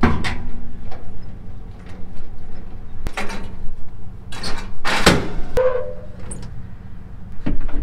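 Metal clanks and rattles of a gooseneck trailer hitch and its safety chains being unhooked from a pickup. Several short bangs, the loudest about five seconds in, over a low steady hum.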